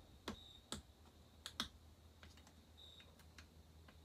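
Faint, irregular sharp clicks of a thin metal pick prying at a seized pin in a Stihl 044 chainsaw during teardown. The clicks are strongest in the first two seconds and sparser and softer after that, over a steady low hum.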